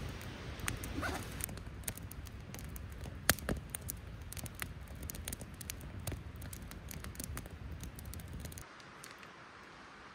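Wood campfire crackling with irregular sharp pops over a low rumble; about eight and a half seconds in it gives way to a quieter steady hiss.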